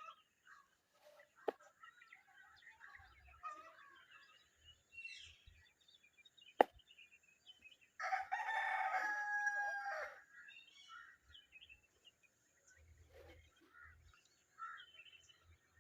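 A rooster crows once, one loud call of about two seconds past the middle, over scattered soft chirping of baby birds. There are two sharp clicks earlier, the second one brief but the loudest moment.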